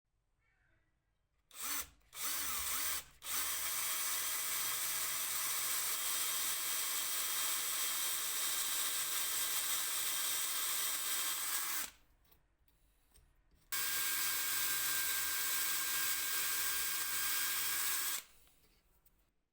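Power drill run with two quick trigger pulls, its pitch dipping and rising, then held at steady speed for about eight seconds, stopped, and run again for about four seconds.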